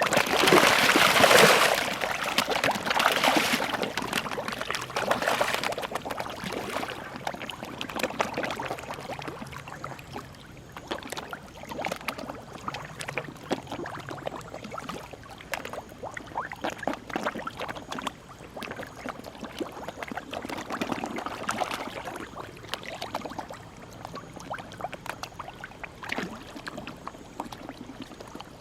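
Many koi splashing and slurping at the water surface as they take feed, loudest in the first couple of seconds and then a steady patter of smaller splashes.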